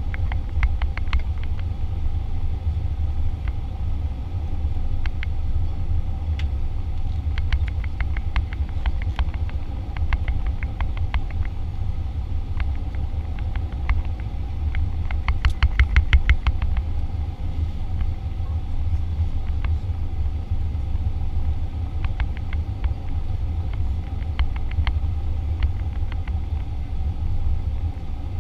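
Cabin noise inside a Boeing jet airliner on its approach to land: a steady low rumble of engines and airflow with a faint steady hum above it. Sharp clicks and rattles come throughout, densest and loudest about halfway through.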